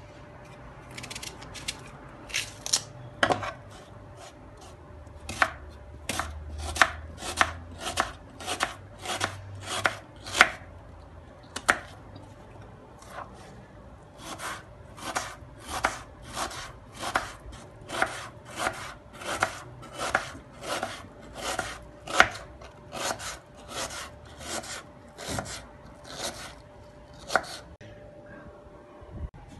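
Kitchen knife chopping onions on a plastic cutting board: a long run of sharp knocks, about two a second, with a short pause around halfway through.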